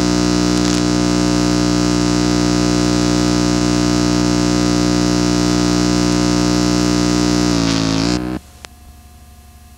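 Wind tunnel running with a loud, steady droning hum made of many even tones. Near the end the pitch wavers, then the sound cuts off suddenly, leaving only faint tape hiss as the recording ends.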